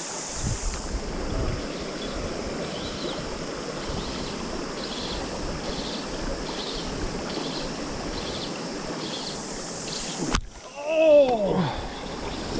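River water running with a steady high insect chorus, cicadas by the season, pulsing in a regular beat about one and a half times a second. Near the end the sound changes abruptly and a louder sound whose pitch slides up and down comes in a few times.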